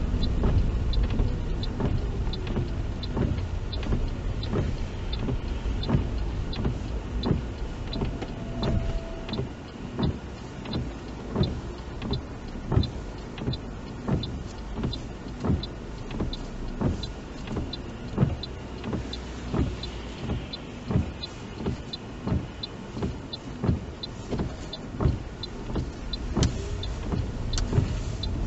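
Car cabin on a wet road: windscreen wipers sweeping with a thump about every 1.3 seconds over steady engine and tyre noise, and a quick light tick about twice a second, like a turn indicator.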